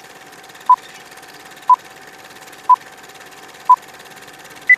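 Old film-leader countdown sound effect: a short electronic beep once a second, five times, then one higher-pitched beep at the very end, over a steady hiss and a faint hum.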